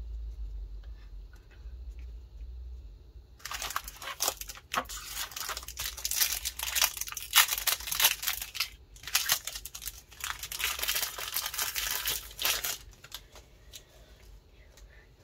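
Foil wrapper of a Pokémon trading card booster pack crinkling and tearing as it is opened, starting a few seconds in and going on in bursts for about nine seconds with a short pause midway.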